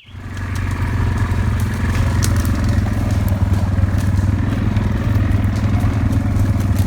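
ATV (4-wheeler) engine running at a steady speed while riding, with a few light clicks and clatters over it.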